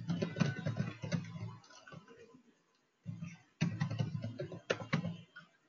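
Fast typing on a computer keyboard, in two runs of quick keystrokes separated by a pause of about a second.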